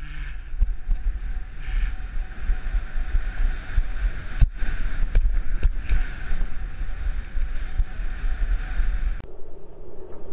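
Wind buffeting an action camera's microphone as a skier runs downhill, over the steady hiss of skis sliding on hard-packed snow, with a few sharp knocks about four to six seconds in. About nine seconds in the sound turns abruptly duller.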